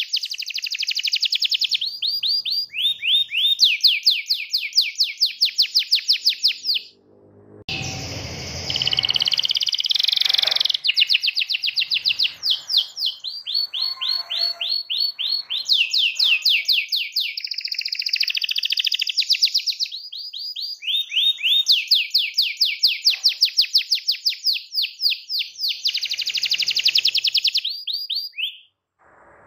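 Male canary singing long rolling trills, fast runs of rapidly repeated notes that change speed and pitch from phrase to phrase, with a short break about seven seconds in.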